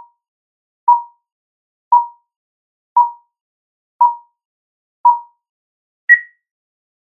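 Film-leader countdown beeps: short beeps of one pitch, one each second, five in a row, then a last beep at a higher pitch.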